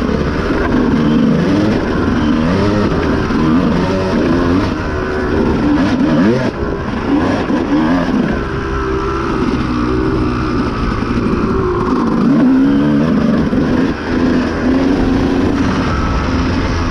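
Honda CR250 two-stroke dirt bike engine revving up and down as the rider works the throttle along a motocross track. It drops off briefly about six and fourteen seconds in.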